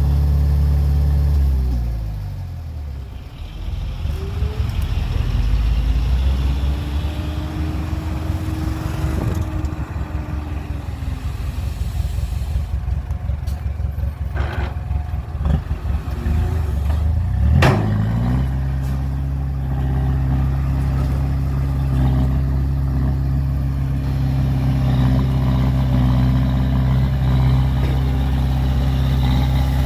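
Heavy diesel engine running at high revs. It drops to a low rumble about two seconds in, with a few sharp knocks and clanks, then revs back up a little past halfway and holds steady.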